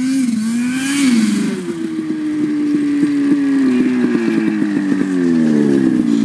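Turbocharged Ski-Doo Summit 800 snowmobile with its Rotax 800R two-stroke twin running. It revs up over the first second, then its pitch falls slowly and drops further near the end as the sled comes in and slows to a stop.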